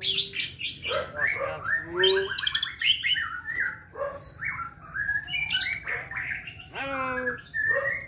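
Common hill myna calling in a rapid, varied string of whistles, squawks and chatter. It opens with quick clicks, moves into whistles that glide up and down, and ends with a harsh buzzy call.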